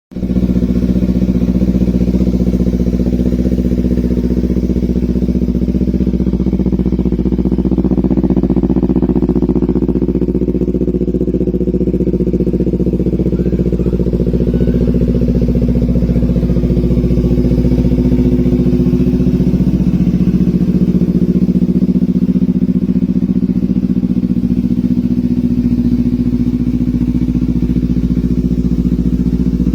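Kawasaki Z250 motorcycle engine running steadily at a cold idle, its pitch holding level.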